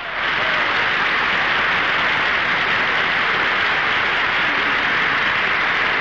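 Audience applauding steadily: dense, even clapping.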